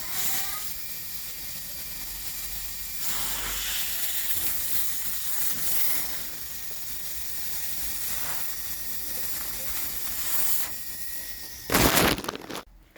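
Pressurized gas hissing out through a refrigerator's suction pipe, with a much louder gush near the end that then drops away sharply.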